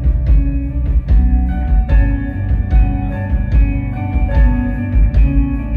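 Instrumental post-rock band playing live: electric guitars holding ringing, sustained notes over a steady drum beat and a heavy bass low end, heard from the audience.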